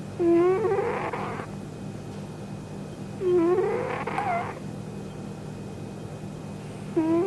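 Sleeping kitten snoring: a pitched, slightly rising snore on each breath, about every three seconds, three times, the last at the very end.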